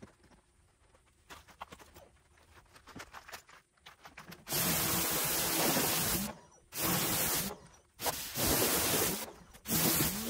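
Pressure washer spraying water against a tractor cab's glass in four loud hissing bursts from about halfway in, the gun's trigger released briefly between them. A low hum rises at the start of some bursts as the pump comes up to pressure.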